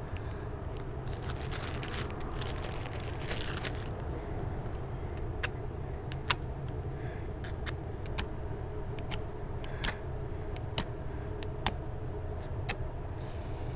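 Wooden match scraped again and again against a cardboard matchbox striker strip: short sharp scratches about once a second through the second half, after some rustling in the first few seconds. A steady low outdoor rumble, like street traffic, runs underneath.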